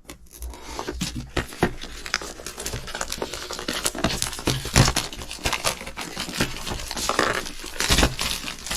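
Packaging for a QiYi Clock puzzle being handled and opened: crinkling and rustling with many irregular small clicks and taps, and a louder rustle near the end.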